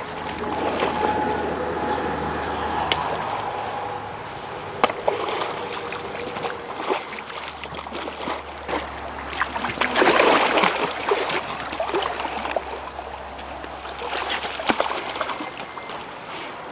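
Water splashing and sloshing as hands and legs in waders work in shallow water, with several sharp knocks and a louder splash about ten seconds in.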